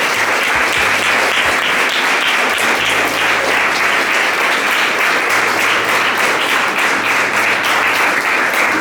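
Audience applauding: many hands clapping together in a continuous, even patter.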